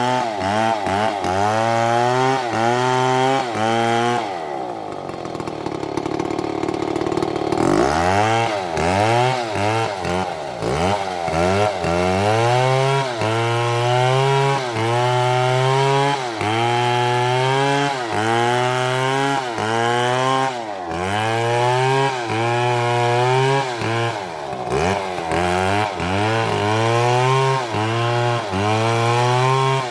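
STIHL two-stroke chainsaw cutting wood, the engine revving up and falling back about once a second as the chain bites and eases. About four seconds in it drops to a lower, steadier note for a few seconds, then revs up again into the cut.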